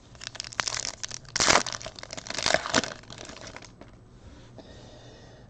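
Foil trading-card pack wrapper crinkling as it is handled and opened, a quick run of crackles loudest about a second and a half in, dying away after about three seconds.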